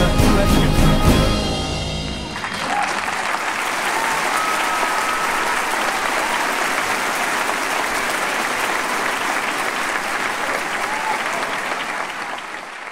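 A baroque-style string ensemble plays its last notes, which end about two seconds in, and the audience then breaks into steady applause.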